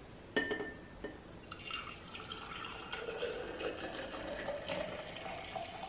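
Green juice poured from a plastic mixing bowl into a glass mason jar: a steady trickle whose pitch rises slowly as the jar fills. A light knock sounds about half a second in.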